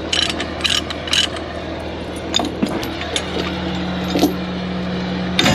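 Light metallic jingling and clinks, clustered in the first second or so and scattered after, over the steady hum of an idling truck engine.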